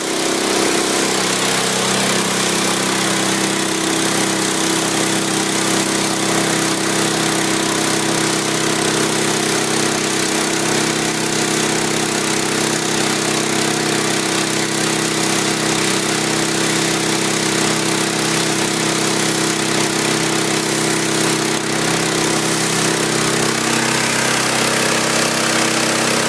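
Pressure washer running steadily: the even drone of its small petrol engine under the hiss of the water jet blasting a brick wall, rinsing off graffiti remover after its dwell time.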